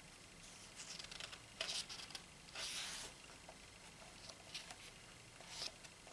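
Pages of a thick photobook being turned: short paper swishes and rustles with a few light taps, the longest swish about three seconds in.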